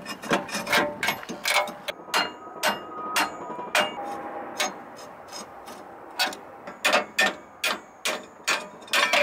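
Sharp metal knocks and clinks of hand tools on a rusted disc-brake rotor and caliper, including hammer taps on the caliper, coming about one or two a second and faster near the end. Some strikes ring briefly.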